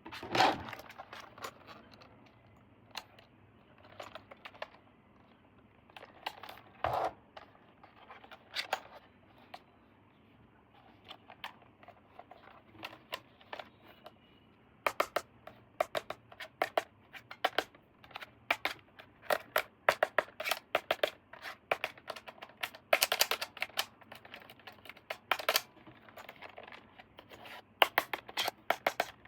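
Hands handling plastic toy parts and packaging: irregular clicks, taps and scratches, sparse at first and then coming thick and fast about halfway through.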